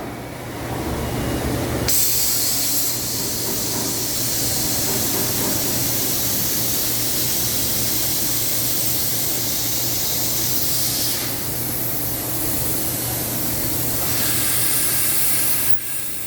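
A long, steady hiss of compressed air from the robot cell's pneumatic tooling over a steady machine hum. The hiss starts about two seconds in, dips briefly past the middle, and cuts off suddenly near the end.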